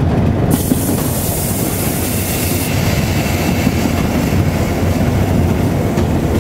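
Steady rumble of a locomotive running along the track, heard from inside its cab. A high hiss comes in about half a second in and eases off about two seconds later.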